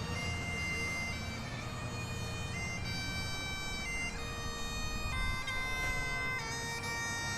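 Bagpipes playing a slow melody, the chanter moving from one held note to the next over the steady hum of the drones.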